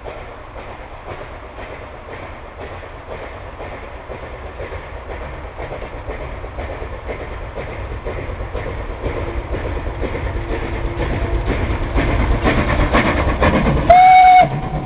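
Steam locomotive approaching and passing close, its exhaust chuffing in a steady beat that grows steadily louder. Near the end comes one short, loud blast of its steam whistle.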